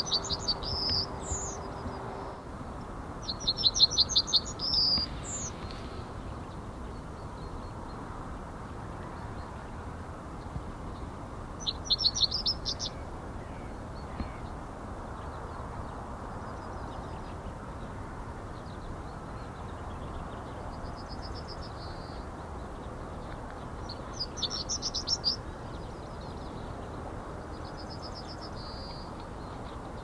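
Male yellowhammer calling: four loud phrases of rapid repeated high notes, the first two ending on a higher note. The phrases come at the start and about 3, 12 and 24 seconds in.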